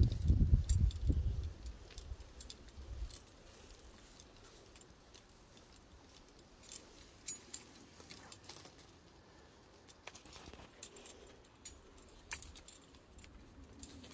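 Metal climbing hardware (carabiners, cams and nuts) clinking and jingling, in scattered light clicks. A low rumble in the first two seconds.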